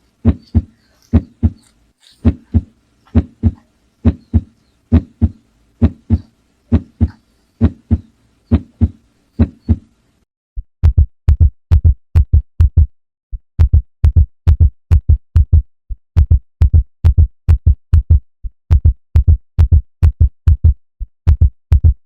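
Heartbeat heard through a stethoscope: steady paired lub-dub beats, a little under one pair a second. About ten seconds in it switches to louder, deeper beats coming faster, around two pairs a second.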